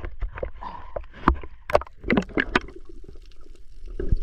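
Seawater splashing and sloshing against a camera held at the surface in choppy waves, in many irregular sharp splashes over a low rumble, dying down briefly shortly before the end.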